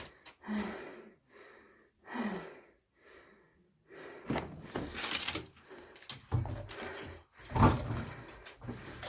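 A cat chasing a play toy: a few short breathy sounds, then busy scuffling and rustling with sharp thumps, loudest about five and seven and a half seconds in.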